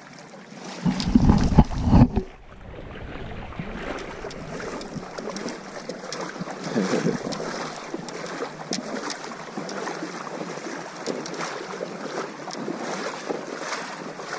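River water running steadily, with a loud rumble of wind buffeting the microphone for about a second near the start.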